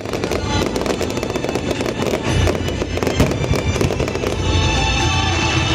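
Aerial fireworks bursting and crackling in quick succession, with music playing alongside.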